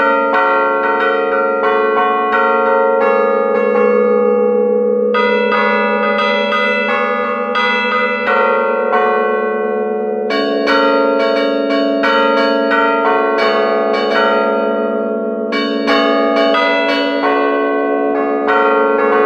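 Church bells in the belfry, up close and loud, struck by hand from a wooden keyboard: rapid, rhythmic patterns of strokes on several bronze bells, their tones ringing over one another. The pattern of notes changes every few seconds.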